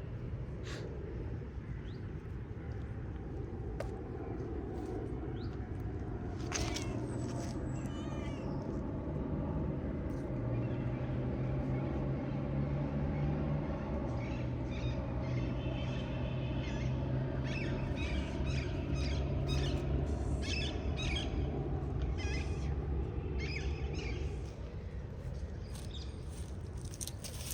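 Small birds chirping and trilling over a steady low rumble, with the chirps coming thicker in the second half.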